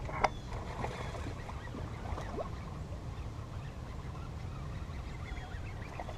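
Steady low wind rumble on the microphone from a strong breeze across open water, with one sharp click just after the start and a few faint scattered ticks.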